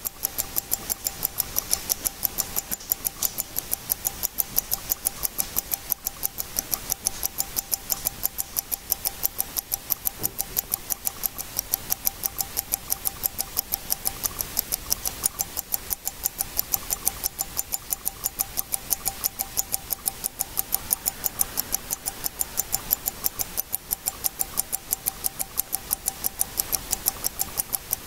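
Mechanical automatic bridge wristwatch with a Shenhua 9541 movement ticking: its escapement clicks rapidly and evenly as the balance wheel swings.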